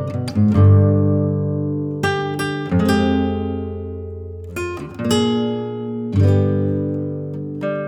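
Background music: an acoustic guitar playing slow chords and plucked notes, each struck chord left to ring and fade before the next.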